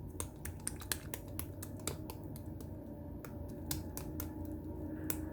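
A run of irregular light clicks and taps over a low steady hum.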